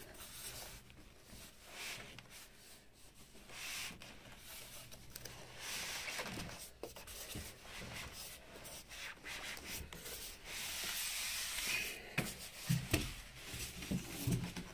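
Styrofoam packing blocks rubbing and scraping against a cardboard box as a tightly packed studio monitor is worked loose, with a few knocks near the end as it is lifted out.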